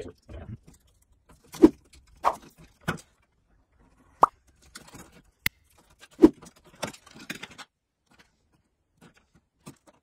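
A utility knife slitting and scraping the plastic sheathing off white electrical cable, then a hand stripping tool working the wires: a scattered series of short clicks, snaps and scrapes, busiest in the first eight seconds.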